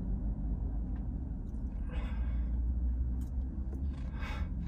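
A woman breathing out softly twice, about two seconds in and again near the end, over a low steady rumble inside a car.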